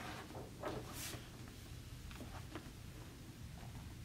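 Large picture-book page turned and smoothed flat by hand: a soft paper swish about a second in, then faint rustles and taps, over a low steady room hum.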